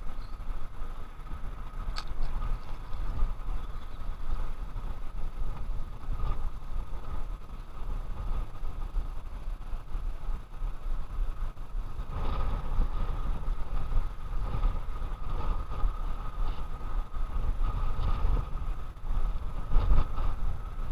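Wind buffeting the microphone over a steady hum of traffic, with a single sharp click about two seconds in.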